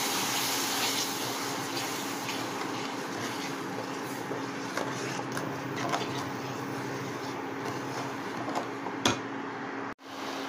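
Steady hum and hiss of an induction cooktop with mango puree and sugar simmering in a non-stick pan, with a few faint taps and scrapes of a wooden spatula. The sound cuts out briefly near the end.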